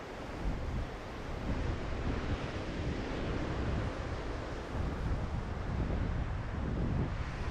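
Strong wind buffeting the microphone over surf breaking on the beach: a steady rushing noise with a rumbling, gusty low end.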